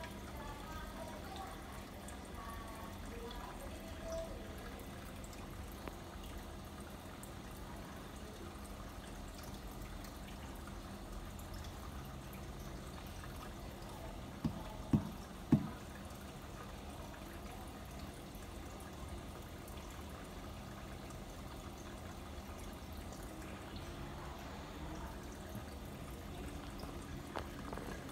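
Faint steady trickle of water in a fish tank over a low steady hum. About halfway through come three short knocks in quick succession.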